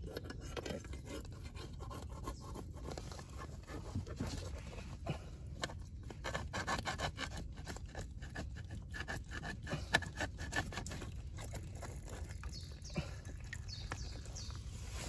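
Scraping and rubbing with many small, irregular clicks against mud and mangrove roots at a crab burrow, busiest in the middle.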